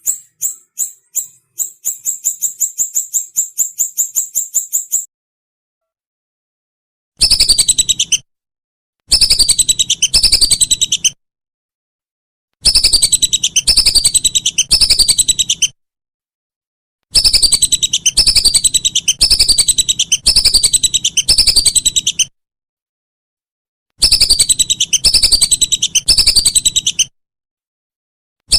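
Recorded songbird song: a run of high notes that speed up into a rapid trill, then five separate bursts of quick, high, falling whistled notes. Each burst starts and stops abruptly, like a looped recording.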